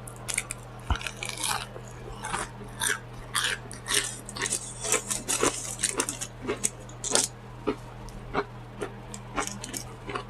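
Close-miked chewing of fried onion rings: a run of irregular smacking, crunching clicks, a few a second, over a steady low hum.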